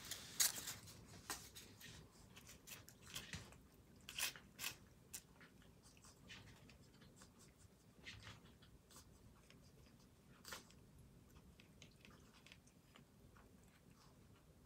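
Cat chewing and crunching anchovies: faint, irregular crunches, coming thick and fast for the first few seconds, then sparser.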